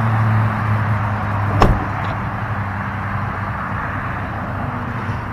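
Lifted pickup truck's engine running with a steady low hum as the truck moves off along the sidewalk, over a haze of highway traffic noise. A single sharp knock comes about one and a half seconds in.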